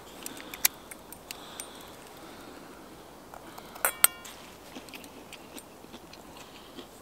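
Metal spoon clinking and scraping in a metal cooking pot while eating: scattered light clicks, with two sharper metallic clinks about four seconds in, the second ringing briefly.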